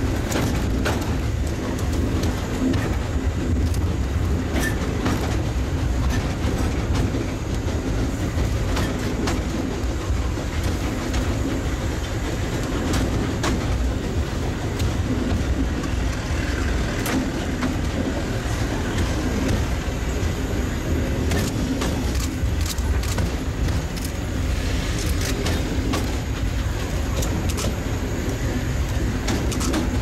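Narrow-gauge (760 mm) steam train running steadily, heard from a carriage behind the locomotive: continuous low rumbling running noise with irregular sharp clicks and clatter from the wheels on the rails.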